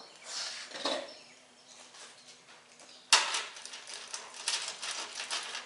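Handling of tool-cart parts and hardware: a faint rustle, then a sudden clatter about three seconds in followed by a couple of seconds of rapid rattling and rustling, like loose nuts, bolts and washers being shaken or poured in their packaging.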